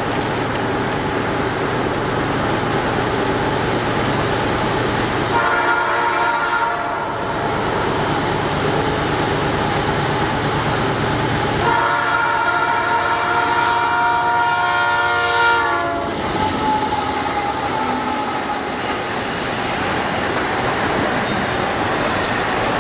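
CN freight locomotive horn on an eastbound intermodal train, sounded as a shorter blast about five seconds in and a long blast about twelve seconds in, over the steady rumble of the approaching train. From about sixteen seconds the container cars pass close by, with wheel noise on the rails.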